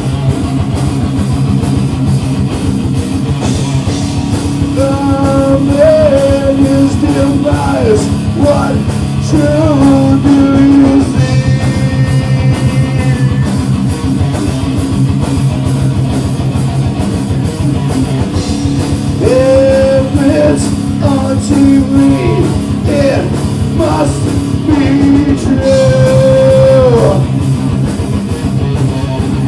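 Live rock band playing loudly: guitars and a drum kit, with a melody line on top that bends and slides in pitch.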